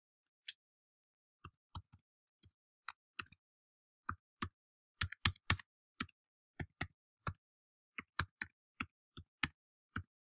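Keystrokes on a computer keyboard: unhurried, unevenly spaced key taps, a few a second, starting about a second and a half in, as a web address is typed.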